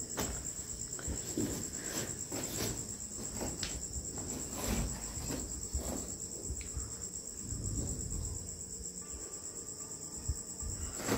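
A cricket chirps in a steady, high-pitched trill, with a few faint scattered clicks and rustles underneath.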